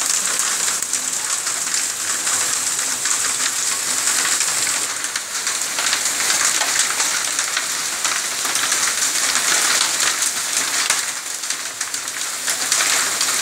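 Small hailstones falling with rain onto wet concrete and ground: a dense, steady hiss of countless tiny impacts.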